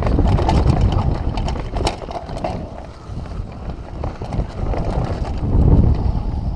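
Downhill mountain bike riding fast over a dirt forest trail: low rumble and wind buffeting on the microphone, with frequent sharp clicks and rattles. The noise dies down near the end.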